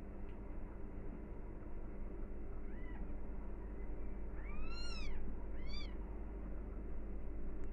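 Newborn kittens mewing: three short, high-pitched mews that rise and fall, about three, five and six seconds in, the middle one loudest.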